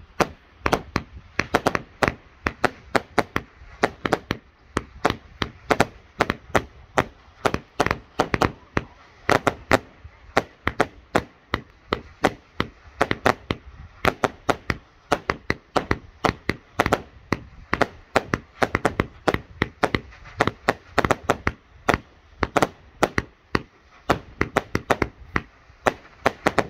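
AstroBoy Dempsey Roll 81-shot firework cake firing shot after shot, about three sharp reports a second in a rapid, steady string. The reports are the shells lifting from their tubes and bursting overhead.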